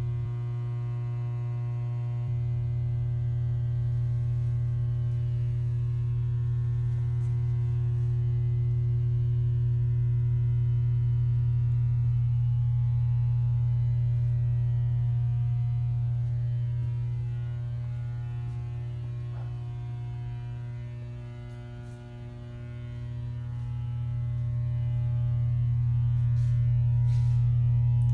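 A steady low hum with many even overtones. It slowly swells, dips about three quarters of the way through, then rises again.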